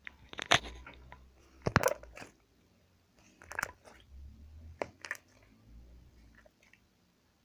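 Slime (kimeleca) being squeezed and poked right at the microphone, giving several sharp crackling snaps and pops with a low handling rumble between them.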